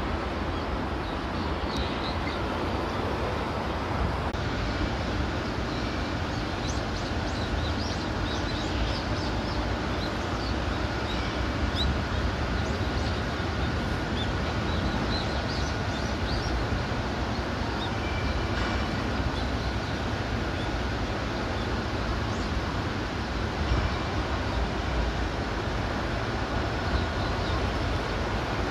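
Steady outdoor background rumble with a faint steady whine above it and scattered short, high chirps.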